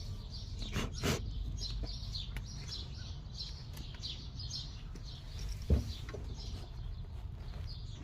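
Small birds chirping repeatedly over a steady low rumble, with a couple of brief knocks about a second in and another near the end.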